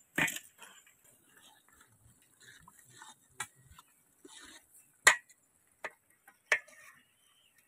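A long metal spoon knocking against the side of a large aluminium cooking pot as noodles are stirred in boiling water: about five sharp, uneven clinks, the loudest a little past the middle. The first, near the start, is a duller splash-knock as dried noodles go into the water.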